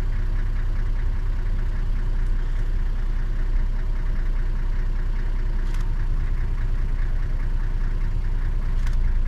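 Safari game-drive vehicle's engine idling steadily with a low, even hum while stopped.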